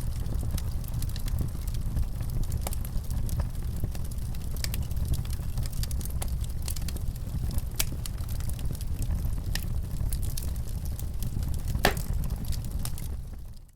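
Wood fire in a fireplace crackling: irregular sharp pops and snaps over a steady low rumble, with one louder pop near the end. The sound dips out briefly right at the end.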